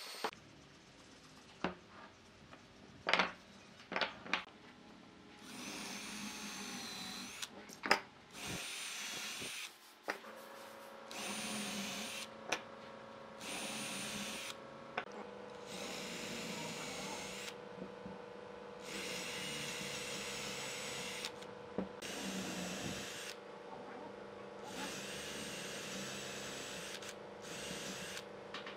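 Electric drill run in a string of short bursts, each a second or three long, with a whine whose pitch shifts as the bit works into the wood. A few sharp knocks of wood being handled come before it, in the first seconds.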